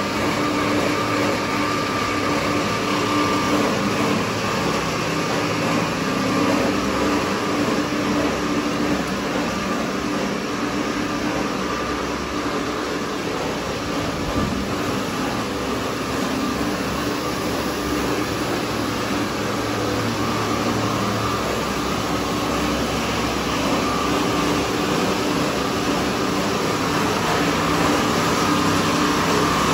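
Cast stretch-film production line and its automatic winder running in the factory: a steady, dense mechanical noise with constant hum tones through it, unchanging throughout.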